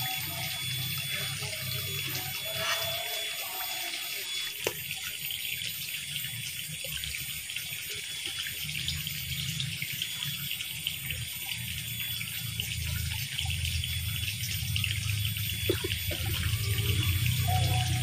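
Steady running, trickling water at a small fish pond, with a couple of faint clicks.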